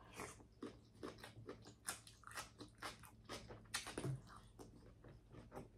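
A person chewing food close to the microphone: a faint, irregular run of small mouth clicks and smacks, a few a second.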